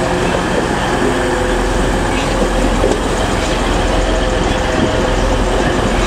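TransPennine Express Class 185 diesel multiple unit passing close by, its underfloor Cummins QSK19 diesel engines running under the rumble of wheels on rail. The noise is loud and steady throughout.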